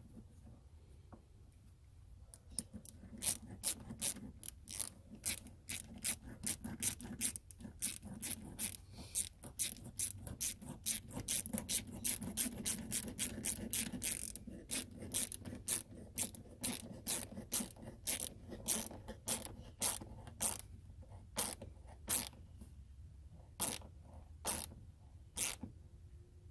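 Hand ratchet clicking as it is worked back and forth to tighten a hose clamp on a coolant hose, two to three clicks a second with a low rasp under them, the clicks spacing out to about one a second in the last ten seconds.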